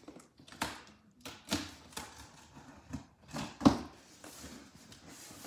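A knife slitting the packing tape on a cardboard box and the cardboard flaps being pulled open: a handful of short scraping, rasping strokes, the sharpest about two-thirds of the way through.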